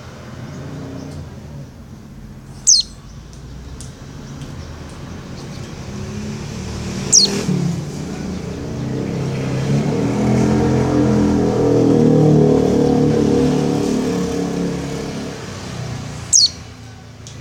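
Three short, high calls of a white-eye (pleci), each a quick downward sweep, spaced several seconds apart: a female's call to a male. A motor vehicle passes in the middle, its low running sound swelling and fading away.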